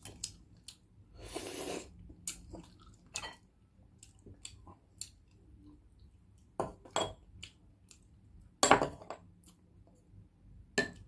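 Scattered clinks and taps on a dish and some chewing while balut eggs are eaten; a short hiss comes about a second and a half in, and the loudest clinks come in the second half.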